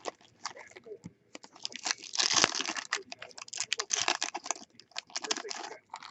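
Foil trading-card pack wrappers being torn open and crinkled by hand, in irregular bursts of ripping and crackling with small clicks between.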